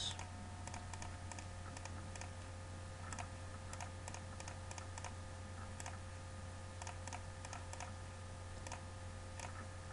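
Faint, irregular clicking from numbers being entered on a computer, over a steady low electrical hum.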